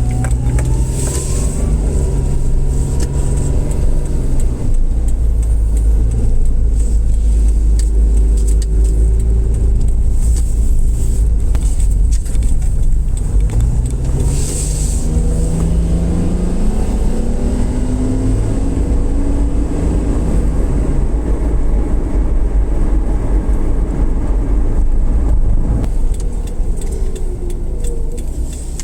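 Car on the move: steady low engine and road rumble, with the engine pitch rising as it accelerates around the middle.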